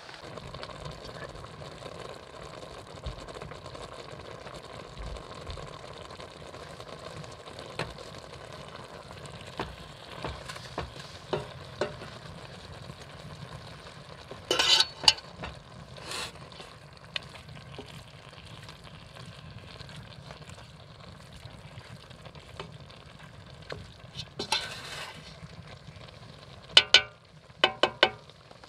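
Ground beef and pork sizzling as it browns in a stainless steel stockpot. A wooden spoon stirs it, scraping and knocking against the pot now and then, in a few clusters of sharp clicks.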